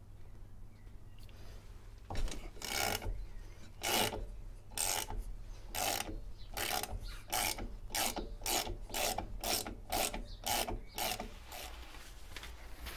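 Ratchet wrench clicking in short repeated strokes, closing up to about two a second, undoing the 12 mm nuts that hold a drum-brake adjuster to the backing plate.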